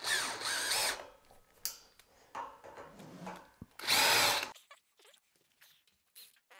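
Cordless drill driver driving the final hex bolts into a metal bed frame's corner joints. It runs in two short bursts: about a second at the start, then about half a second near the middle, its whine bending in pitch as the bolt draws tight. Small handling sounds fall between the bursts.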